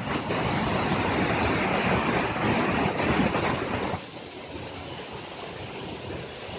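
Waterfall: a steady rush of falling water, which drops to a quieter level about four seconds in.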